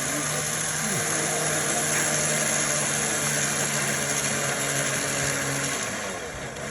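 Vehicle engine running steadily, with a constant rushing noise and a low, even hum.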